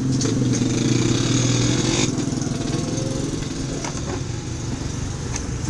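A small engine running steadily in the background, louder in the first two seconds, with a few faint clicks.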